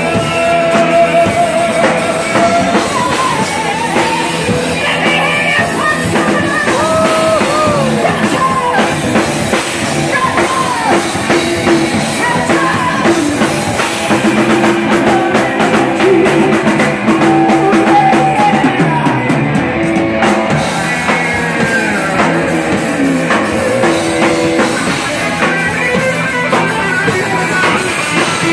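Live band playing heavy metal: drum kit, bass guitar and electric guitars playing loud together, with a melodic line bending in pitch over the top.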